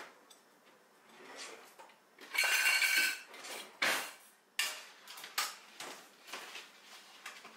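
Metal kitchen utensils clattering together during a search for a spatula, loudest in a ringing rattle about two and a half seconds in, followed by scattered sharp clinks and knocks.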